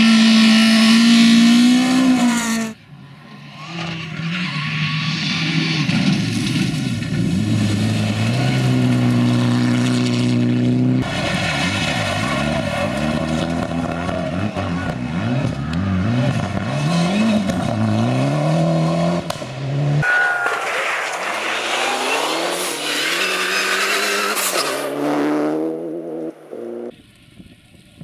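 Rally car engines at full throttle in several short clips with abrupt cuts between them. The pitch climbs through the gears and drops on gear changes and braking, over the noise of tyres on loose gravel.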